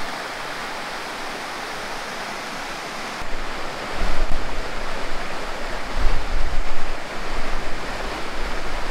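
Water rushing steadily over the rocks of a shallow stream. About three seconds in the sound cuts to a louder, uneven rush of a waterfall with low rumbling swells.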